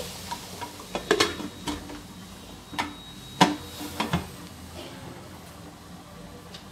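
Aluminium Shri Ganga pressure cooker lid being fitted onto the cooker, with a series of short metal clanks and clicks against the rim as it is set and closed. The loudest knock is about three and a half seconds in.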